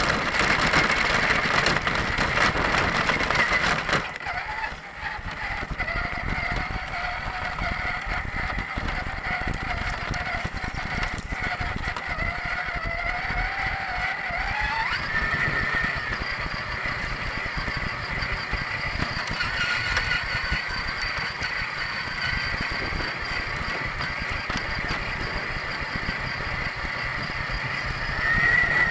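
A 1/10-scale Axial Deadbolt RC crawler's electric motor and gear drivetrain whining as it drives, the pitch shifting with speed and climbing briefly about halfway through. For the first few seconds the tyres crunch loudly over gravel, then run more quietly over grass.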